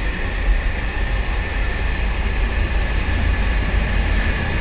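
Container flat wagons of a freight train rolling past, a steady noise of steel wheels running on the rails.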